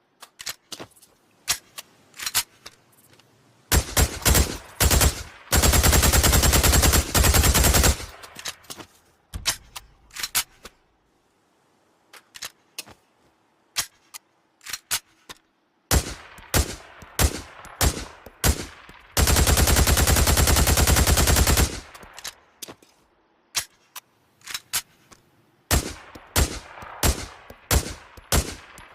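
MP5 submachine gun sound effect: scattered single shots and short strings of shots, broken up by long fully automatic bursts of about two to three seconds each.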